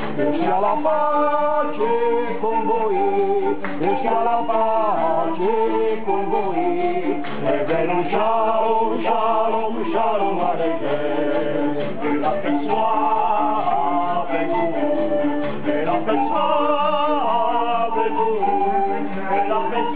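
An ensemble of large bamboo pan flutes playing a folk tune together, with several men's voices singing along.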